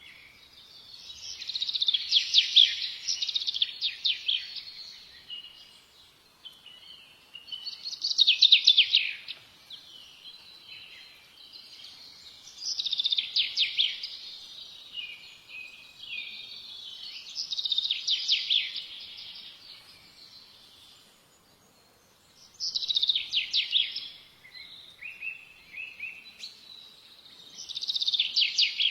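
A songbird singing loud phrases of rapid high notes, about two seconds each, repeated roughly every five seconds, with softer twittering in between.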